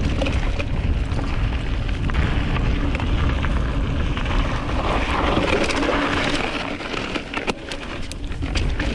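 Merida Big 9 hardtail mountain bike riding a rough, rooty trail: a continuous rumble of wind on the action-camera microphone and the bike's rattle over the ground, with a few sharp knocks near the end.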